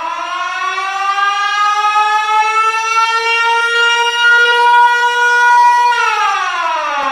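Siren wail used as the Siren Head creature's call: one long howl that climbs slowly in pitch, holds high, then starts to slide down about six seconds in.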